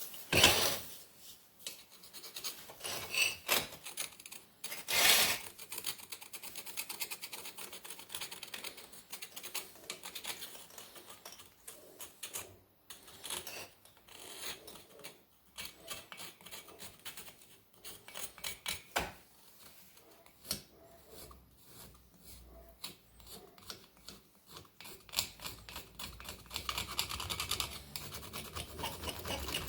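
A screwdriver scraping caked carbon off an aluminum VW Type 1 cylinder head and its valves: irregular scratching and small clicks, with two louder metallic clatters, about half a second and five seconds in.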